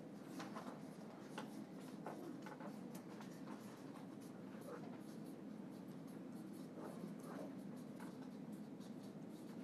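Faint scratching of several pens on paper, with scattered light ticks and taps, as students write.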